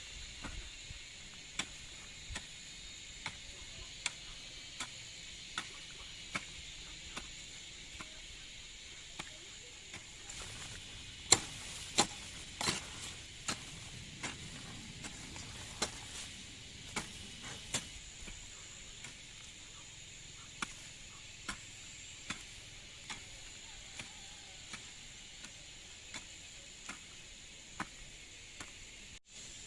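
Regular sharp chopping strokes from a hand tool, roughly one a second, with a few louder strikes near the middle, over a steady high drone of insects.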